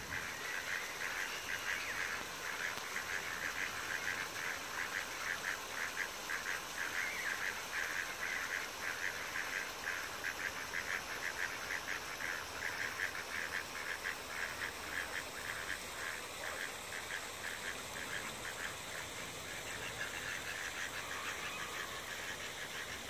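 Ducks calling, a fast steady run of short calls that grows fainter after about sixteen seconds, over a steady background hiss.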